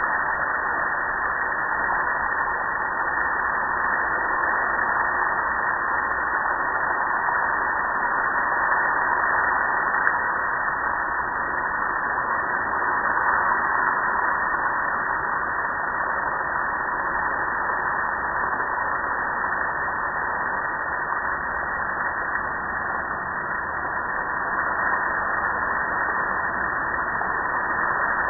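Garden hose nozzle on its shower setting spraying water steadily over a gas grill's metal lid and control panel, an even hiss of water.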